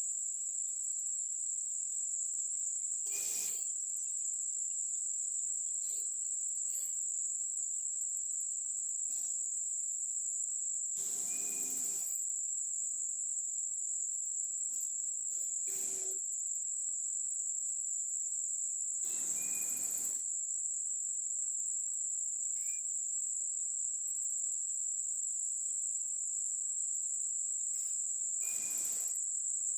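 Insects trilling in a steady, unbroken high-pitched tone, with four short bursts of rushing noise spaced about eight seconds apart.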